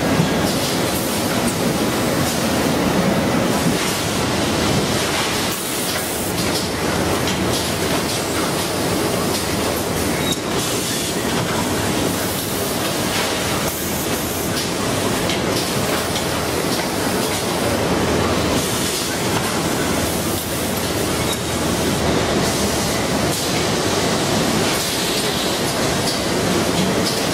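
Machinery of an automatic bag-packing line running: conveyors and palletizing equipment making a steady, even industrial noise with no clear rhythm.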